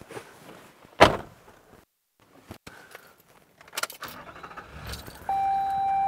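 A vehicle door shuts with a loud thump about a second in, followed by a few clicks and a rattle like keys. About five seconds in, a steady single-pitched electronic beep starts and holds.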